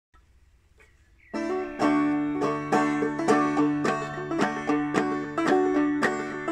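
Five-string banjo played clawhammer style in aDADE tuning, starting about a second in with a steady rhythm of sharp picked notes and brushed strums over a ringing drone.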